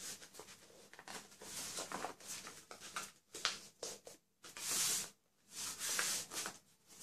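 Hands rubbing and pressing a sheet of heavy origami paper flat to crease a fold firm: a string of soft, uneven swishes of paper and skin.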